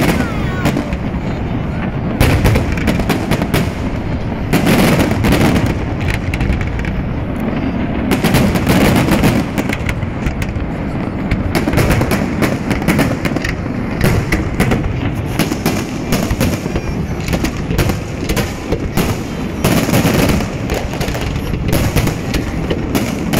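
Aerial fireworks display: a continuous, rapid barrage of shell bursts and booms, with crackling between them.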